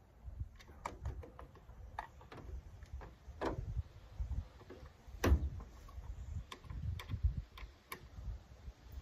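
Irregular light clicks and taps of hands and a small tool working at the plastic cab roof light of a pickup truck, with one sharper knock about five seconds in.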